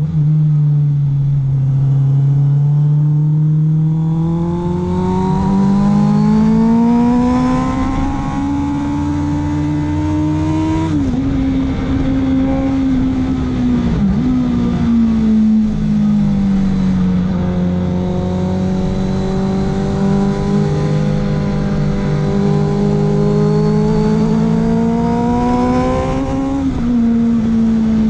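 Honda CBR650F inline-four engine pulling uphill through corners, its revs rising and falling with the throttle. The pitch climbs for about ten seconds, drops sharply about eleven seconds in, dips briefly, then climbs steadily again before dropping near the end.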